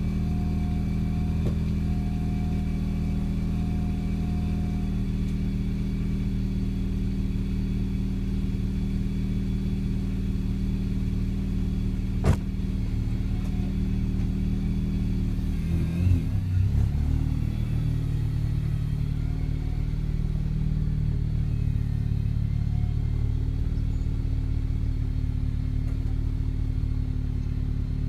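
R53 Mini Cooper S's supercharged 1.6-litre four-cylinder idling through a one-ball (single-muffler) exhaust with a steady low drone. There is a sharp click about twelve seconds in. Just past halfway the note wavers and swells briefly, then settles into a slightly fuller drone as the car starts to move off.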